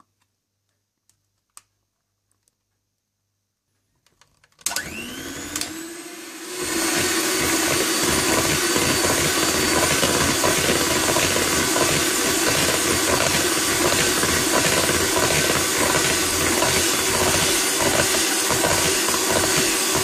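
Electric hand mixer switched on after about four and a half seconds of near silence: its motor spins up with a rising whine, then runs steadily as the beaters whip double cream into a mascarpone and egg-yolk mixture.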